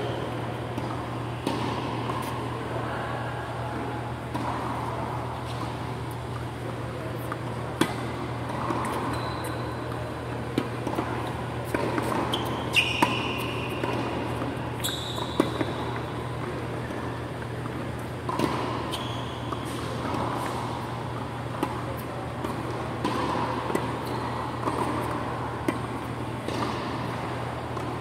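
Tennis balls struck by rackets and bouncing on a hard court during a rally, sharp irregular pocks echoing in a large hall, over a steady low hum of the hall's fans. A few short high squeaks come in the middle.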